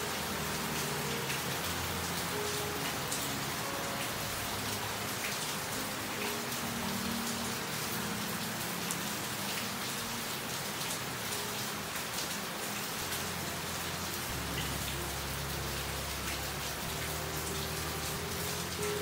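Steady rain falling, with many separate drops ticking close by against the continuous hiss.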